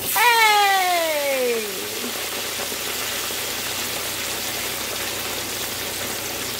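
Hot oil in a deep pot sizzling and bubbling hard as hand-cut potato fries are dropped in, a steady hiss. It is loudest in the first second or two, when a pitched sound glides down in pitch over about two seconds.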